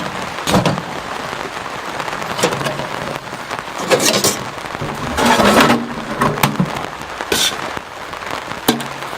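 Steady rainfall, with irregular sharp taps and rustles over it a handful of times.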